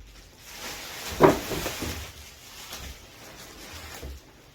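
Drawer of a new metal tool cabinet being slid open, with a sliding hiss and a sharp knock about a second in.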